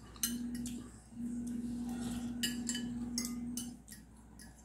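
Metal fork clicking and scraping against a ceramic plate of noodle soup, a series of sharp clicks, over a low steady hum that breaks off briefly and stops shortly before the end.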